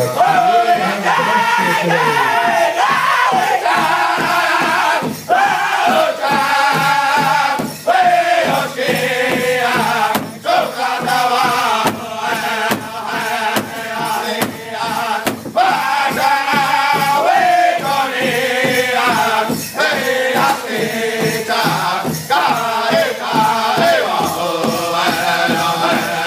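Powwow drum group: several men singing in unison in a high, strained style while striking one large hide drum together with sticks in a steady, even beat. The sung phrases slide down in pitch.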